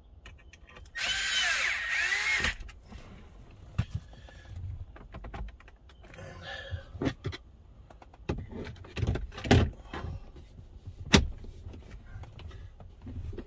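A power tool whirs for about a second and a half near the start, its pitch rising and falling. Then come scattered knocks, thuds and clicks as the aftermarket radio and dash kit are forced into the dash, with one sharp snap about eleven seconds in.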